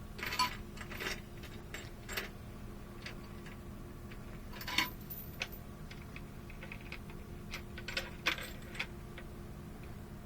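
A dozen or so light, sharp clicks and clinks at uneven intervals over a steady low hum.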